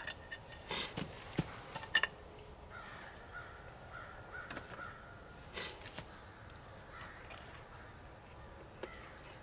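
Faint bird calls repeating, crow-like caws, with several sharp rustles and clicks from close by, the loudest about two seconds in.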